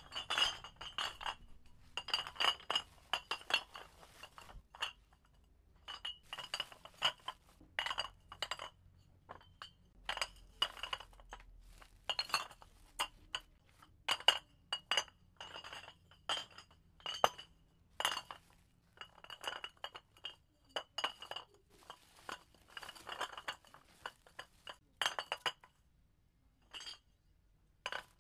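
Empty glass bottles clinking and knocking against each other as they are put into a sack, in irregular clusters of clinks with short pauses between them.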